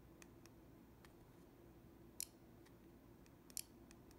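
Near silence: faint room tone with a low steady hum and two faint, short clicks, about two seconds and three and a half seconds in, from fingers handling the iPod Touch.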